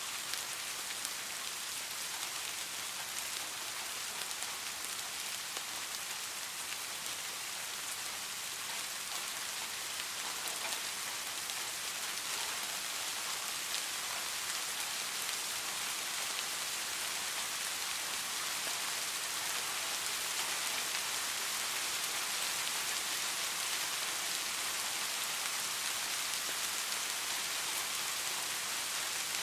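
Steady rain falling and pattering on surfaces, a continuous even hiss with scattered drop ticks.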